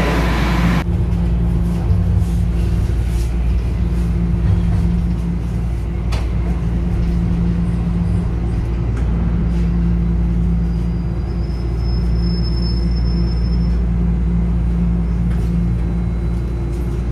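Toronto subway train heard from inside the car as it pulls along a station platform and slows: a steady low rumble and hum, with a faint high whine for a few seconds past the middle.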